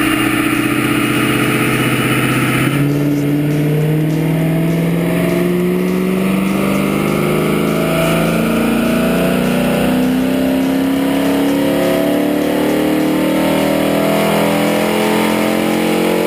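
Dodge Challenger engine with a Corsa Xtreme exhaust running hard on a chassis dynamometer: it holds a steady speed, then about three seconds in the pitch drops and climbs steadily for the rest as the car makes a dyno pull under load.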